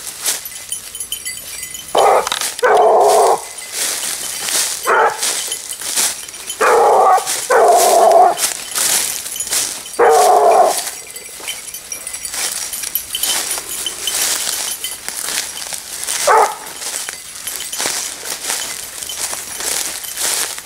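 Grand bleu de Gascogne hounds giving tongue: several drawn-out bays in the first half and one short bay later, with dry twigs and undergrowth crackling throughout.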